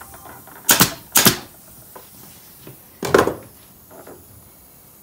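Three sharp hammer blows driving an upholstery tack into the wooden seat frame, two close together about a second in and one more about three seconds in, fixing the twine of a hand-tied coil spring seat.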